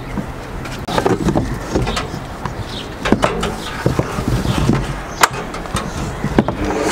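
A stand mixer being handled and set up: the tilting head with its wire whisk is lowered into the stainless-steel bowl, making scattered sharp clicks and knocks, the loudest a little past the middle.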